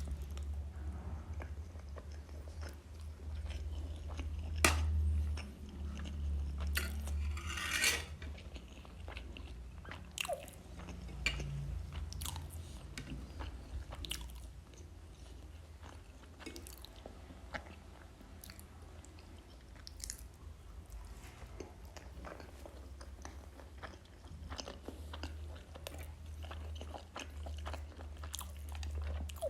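A person chewing and biting food close to the microphone, with irregular crunches and wet mouth clicks throughout.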